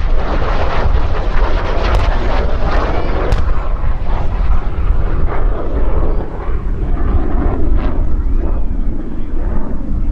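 Jet noise from a MiG-17F fighter's Klimov VK-1F turbojet as it makes a pass and climbs away. It is strongest in the first few seconds, with a steady low rumble of wind on the microphone underneath.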